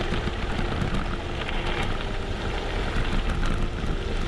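Gravel bike rolling fast down a gravel forest track: tyres crunching and rattling over loose stones, with wind noise on the microphone.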